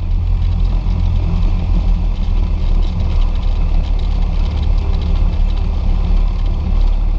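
Cessna 172's piston engine and propeller running at low power, a steady low drone heard from inside the cockpit, as the plane rolls off the runway after landing.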